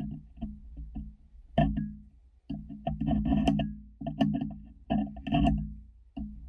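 Background music led by a guitar, played in stop-start phrases.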